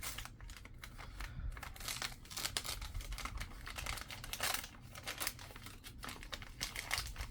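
Wrapping paper crinkling and tearing in irregular bursts as a small gift is unwrapped by hand.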